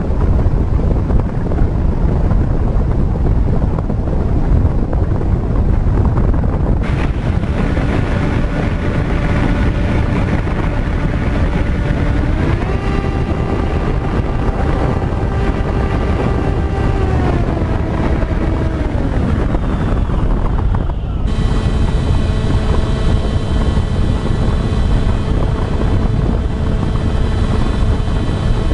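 Wind buffeting the microphone throughout, joined about seven seconds in by the whine of a radio-controlled FPV aircraft's electric motors. The whine rises in pitch, holds, then falls. After an abrupt cut about twenty-one seconds in, a steady, higher motor whine carries on.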